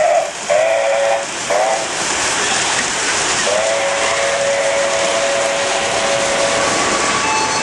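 O-gauge model steam locomotive's sound system blowing a chime steam whistle, over the steady hiss of the running train. A long blast ends just after the start, then comes a long blast, a short one and a final long one held about three seconds: the long-long-short-long grade-crossing signal. Near the end, a different, higher steady tone comes in.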